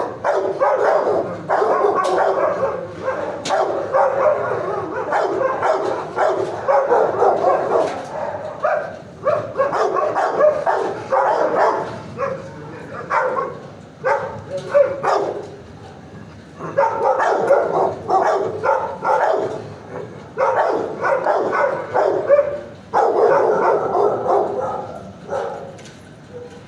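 Shelter dogs barking in the kennel block, a near-continuous din of overlapping barks with a couple of brief lulls.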